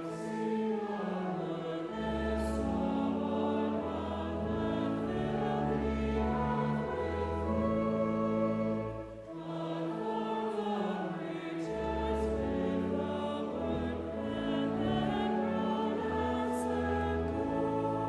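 Church music: a choir singing with instrumental accompaniment in long, sustained phrases, with a brief pause between phrases about halfway through.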